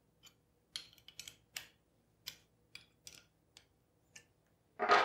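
Small 1/4 inch wrench clicking against the hex heads of the stepper motor's mounting bolts as they are tightened, about ten irregular light metal clicks, with one louder clunk near the end.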